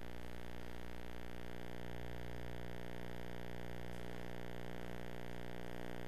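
Steady electrical hum with a faint hiss underneath, unchanging throughout.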